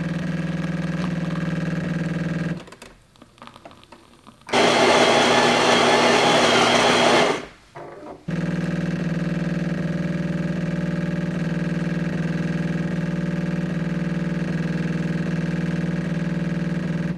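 Jura E8 super-automatic espresso machine brewing an espresso doppio: the pump hums steadily as coffee runs into the glass, then stops about two and a half seconds in. About four and a half seconds in, a louder grinding noise runs for about three seconds as beans are ground for the second shot, and the steady pump hum resumes about eight seconds in as brewing continues.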